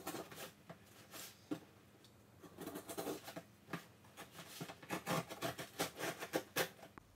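Packing tape on a cardboard shipping box being cut and scraped open with a small hand tool: a string of quick, irregular scratches and taps, busier in the second half.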